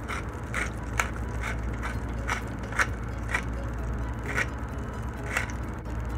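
Wooden pepper mill twisted by hand, grinding black pepper in short, even grinding strokes about two a second, which stop shortly before the end. A low steady hum runs underneath.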